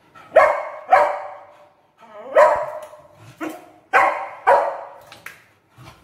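A beagle play-barking while crouched in a play bow. It gives a string of about five loud, sharp barks with fainter ones between, each trailing a short echo.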